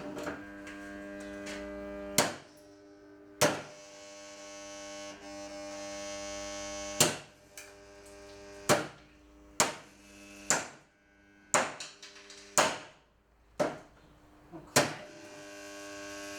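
Home Collection KYT-30 box fan's electric motor humming steadily while it is struck about ten times in a row, sharp cracking hits with a short ring after each. The hum dips after each blow and then builds back up.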